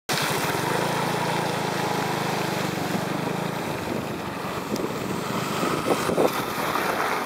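Vehicle engine running in slow traffic, its low hum steady until it drops away about three and a half seconds in, over a constant hiss of tyres on the wet, flooded road and wind on the microphone. A couple of short knocks come about six seconds in.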